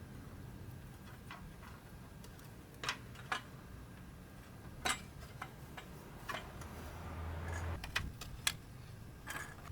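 Irregular sharp metallic clicks and taps from hand tools and exhaust parts being handled during reassembly, with a brief low hum at about seven seconds.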